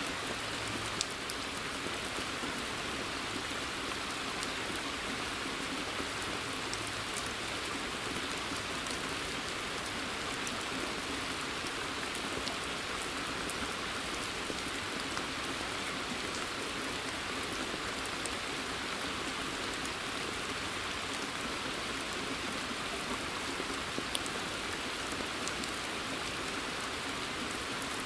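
Steady rain falling in woodland and onto still pond water: an even hiss with scattered single drops ticking close by.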